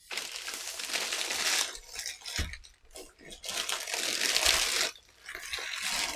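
Clear plastic bag crinkling as hands pull it off a padded nylon lens case, in three spells of rustling with a soft thump between the first two.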